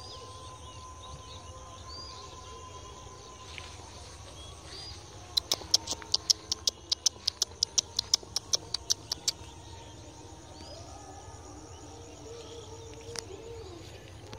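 Small birds chirping now and then in an open field, with a quick run of about eighteen sharp clicks, four or five a second, lasting about four seconds in the middle.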